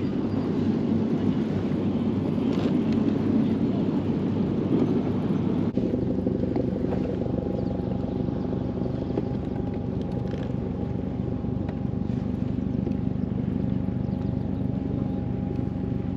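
An engine droning steadily, its tone shifting abruptly about six seconds in, when a steady higher hum joins it.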